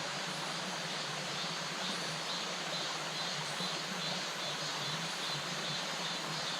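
Mountain valley stream rushing steadily over rocks, an even, unbroken water noise.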